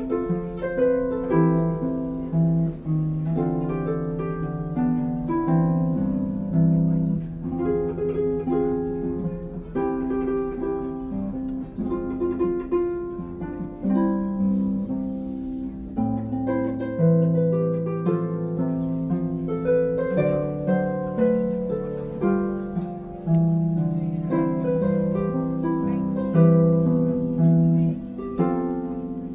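Background harp music: a melody of plucked notes over sustained low notes.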